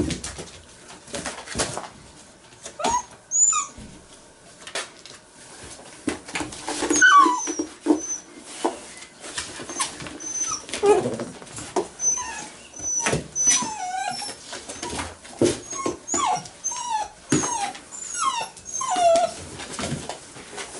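A litter of eight-week-old puppies playing: high, gliding whimpers and yips come again and again, more often from the middle on, over the scrabbling clicks and knocks of paws in a cardboard box.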